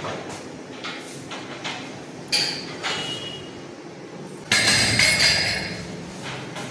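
Metal dumbbells and weights clanking: a few sharp knocks, then a loud, ringing metal clatter about four and a half seconds in.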